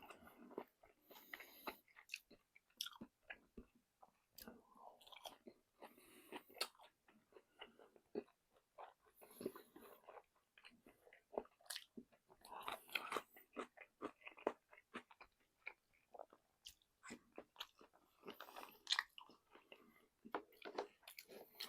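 Someone biting and chewing crunchy fried chicken close to the microphone: irregular crisp crunches and wet chewing, with sharp cracks of the coating at each bite.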